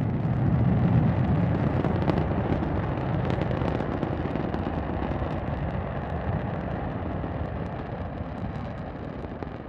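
Saturn V rocket's first-stage F-1 engines at liftoff: a deep, crackling rumble that slowly fades away.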